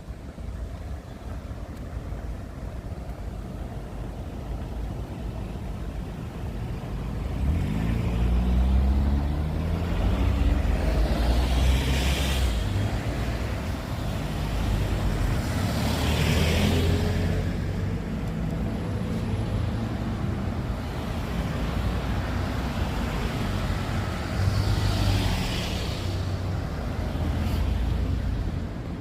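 Vehicles passing on a rain-wet road: a low engine rumble picks up about seven seconds in, and tyre hiss swells and fades three times as cars go by.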